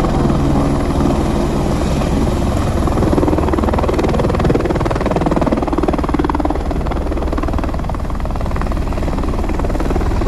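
Helicopter running steadily, its rotor giving a fast, even blade chop over a low engine drone.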